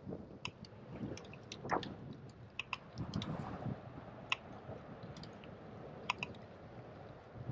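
Bicycle on the move: scattered light, irregular clicks and rattles over a low rumble of wind and road noise.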